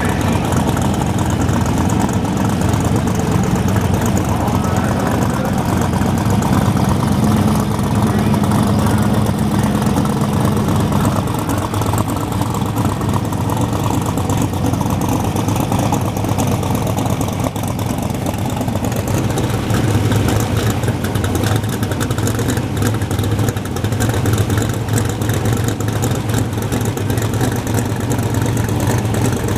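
Drag-race car engines idling with a steady low drone, the pitch shifting about 11 seconds in and again near 19 seconds.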